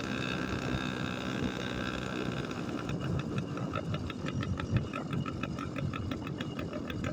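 Small two-stroke motorized-bicycle engine, its exhaust baffle removed, running steadily. About three seconds in it changes to a slower, uneven pulsing, as if dropping back toward idle.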